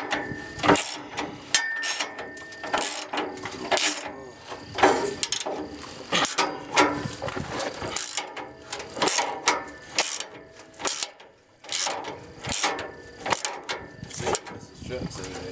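Hand ratchet wrench clicking in repeated short strokes, tightening the fuel tank strap bolts.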